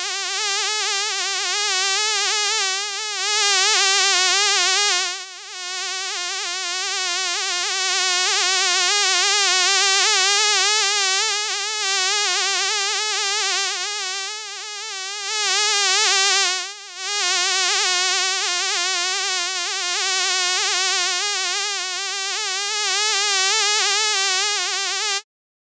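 Fly buzzing sound effect: a continuous wavering buzz that swells and fades as if the fly moves nearer and away, breaking off briefly twice, then stopping abruptly near the end.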